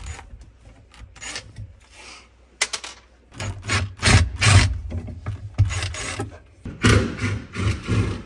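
Cordless impact driver with a long extension bit rattling in several short bursts as it drives screws through a metal drawer slide into a wooden cabinet side. The longest bursts come past the middle and near the end.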